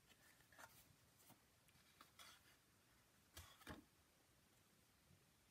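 Near silence, with a few faint rustles and light taps of card stock being handled and set down, the loudest about three and a half seconds in.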